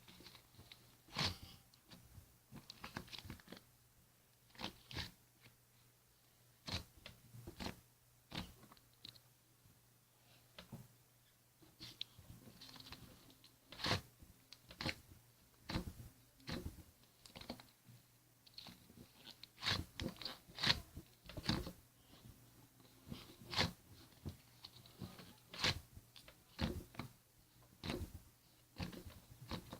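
Crunchy food being bitten and chewed close to the microphone: irregular crisp crunches about every half second to a second.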